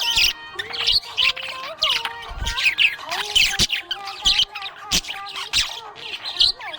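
Budgerigars chirping and squawking in a busy, continuous chatter of rapid short calls and sweeping notes.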